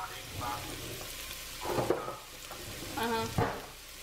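Chopped carrot, onion and celery sizzling in hot oil in a nonstick pot, a steady frying hiss. A brief louder knock comes about two seconds in.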